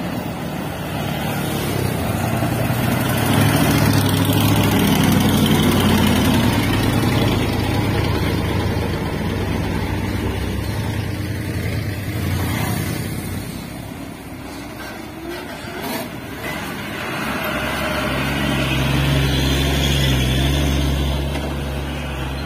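Heavy diesel trucks driving past on a rough dirt road. A laden cargo truck's engine is loud through the first half and dies down after the middle, then a tanker truck's engine comes up loud again near the end.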